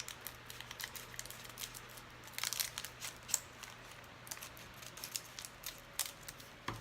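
Trading-card pack wrapper crinkling and tearing as it is opened by hand: quiet, irregular crackles, thickest about two and a half to three and a half seconds in.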